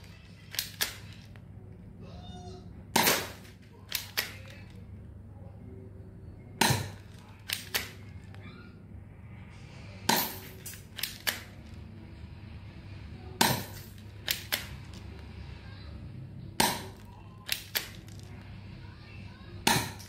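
Spring-powered mini Glock 19 airsoft pistol being fired about six times, one sharp snap roughly every three seconds. Each shot is followed by a couple of lighter clicks.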